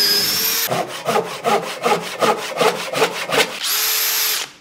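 Cordless drill motor running with a high whine, stopping; then about two seconds of rhythmic rasping strokes, about four a second; then the drill whining again near the end.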